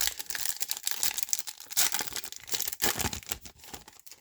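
The wrapper of a football trading card pack being torn open and crinkled: a dense, crackling rustle with sharp crinkles throughout.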